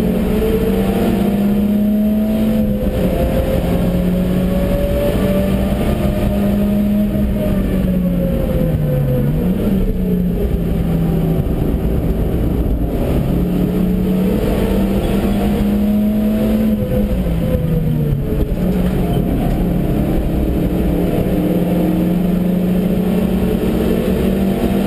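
Stage 1 Suzuki Swift's engine heard from inside the cabin, driven hard at high revs. Its note drops suddenly at gear changes, dips twice (about nine and seventeen seconds in) and climbs back up.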